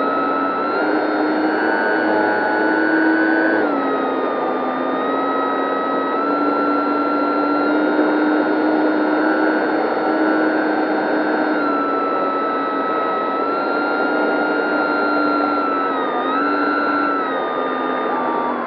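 Dynam 3720-650kV brushless motor and propeller of an RC F6F Hellcat whining in flight, heard from on board the plane. The pitch steps up at the start, drops about four seconds in, and briefly rises and falls again near the end as the throttle changes.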